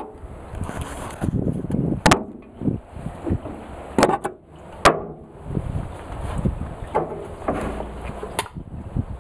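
Camera handling noise with four sharp knocks as the camera is moved about and set down on a table.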